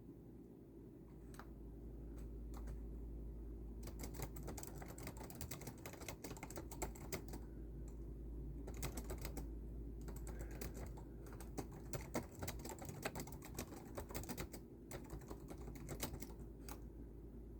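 Typing on a keyboard: a few single keystrokes, then rapid bursts of clicking from about four seconds in, broken by short pauses, over a steady low hum.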